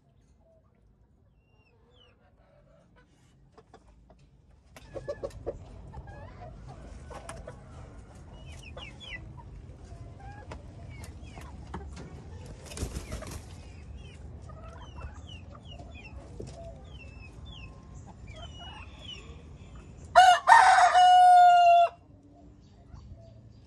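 Domestic chickens clucking and giving short chirping calls, then about twenty seconds in a rooster crows once, loud and for under two seconds.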